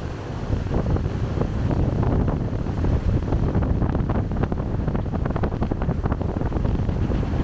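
Wind buffeting the microphone in a loud, low rumble, with a dense scatter of light, irregular taps and clicks through most of it.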